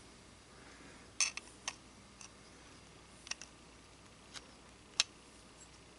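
Scattered light metallic clicks and taps, about eight of them, the sharpest about five seconds in: small steel parts of a P1853 Enfield musket lock and hand tools being handled during reassembly.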